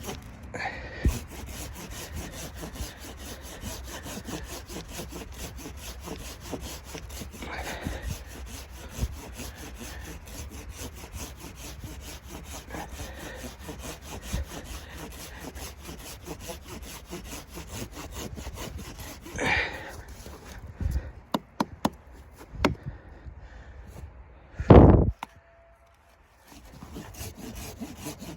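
Steady rasping, rubbing sound, with a few sharp knocks later on and one loud thump near the end.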